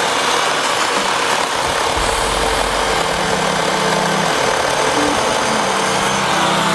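A small petrol-engine yard machine running steadily at a loud, even level, with faint background music underneath.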